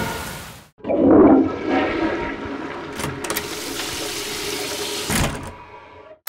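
Cartoon title-card sound effect: a sudden rushing, water-like swoosh about a second in, settling into a steadier swirling hum with a held low tone that fades out near the end.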